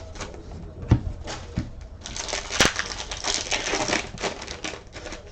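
Trading-card pack wrappers crinkling and cards being handled, a run of small rustles and clicks with a couple of sharper knocks about a second in and again a little past the middle.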